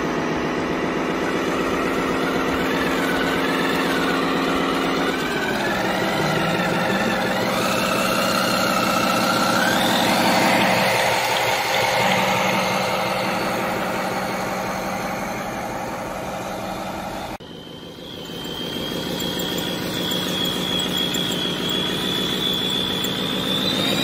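Radio-controlled toy excavator running: a steady engine-like drone with the whine of its electric motors rising and falling as the arm and bucket work. It cuts off abruptly about two-thirds of the way in. When it resumes, a steady whine climbs slowly in pitch.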